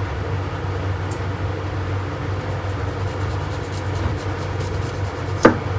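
Steady low hum of kitchen background noise, with faint quick scraping ticks about halfway through and one sharp knock of something hard near the end.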